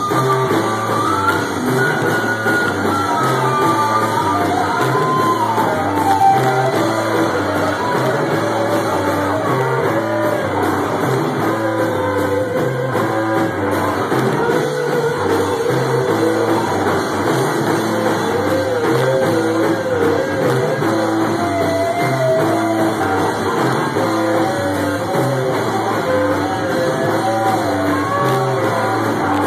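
Live rock band playing: electric guitar and drum kit with a steady low pulse, and a wavering voice singing over them.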